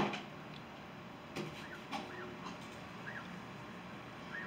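A sharp knock, then a couple of softer taps, of a steel palette knife against the paint palette as white oil paint is picked up. A small bird repeats a short chirp every second or so in the background.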